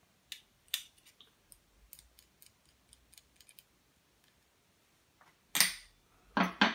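Light metallic clicks and ticks of a 13 mm spanner working on the nut of a stripped air pistol frame. Near the end come three louder, sharper knocks of metal parts being handled, the last two close together.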